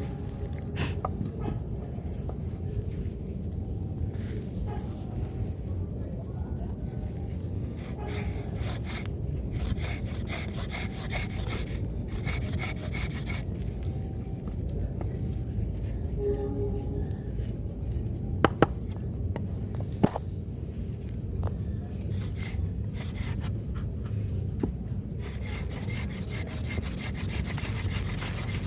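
Crickets trilling continuously in a high, fast-pulsing drone, with a few sharp clicks or knocks about two-thirds of the way through.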